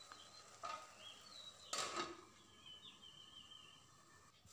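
An aluminium lid is set onto a kadai of simmering curry, with a light knock and then a short metal clatter about two seconds in. A bird chirps in the background with short whistled calls.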